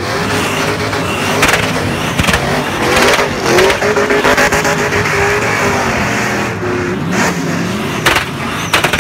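Car engine revving hard at high rpm through a burnout, its pitch rising and falling, over the hiss of spinning, smoking tyres, with a few sharp cracks along the way.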